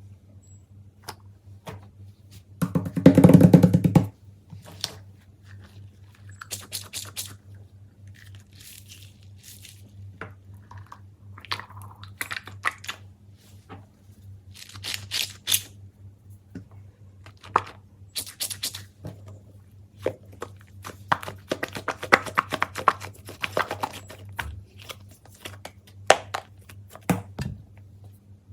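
Fidget toys being handled: scattered plastic clicks, taps and crinkling, with a loud dense crackle about three seconds in, over a steady low electrical hum.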